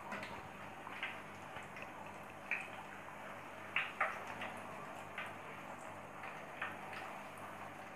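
Papri (flat maida dough discs) deep-frying in oil in a kadai over a low flame: a low, steady sizzle with scattered small pops and clicks, the loudest pair a little under four seconds in.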